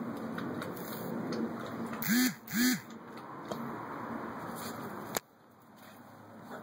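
Two short quacking calls about half a second apart, each rising then falling in pitch.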